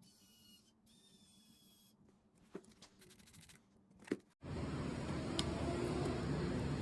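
A few faint clicks and handling sounds, then about four and a half seconds in a sudden switch to a louder, steady car noise.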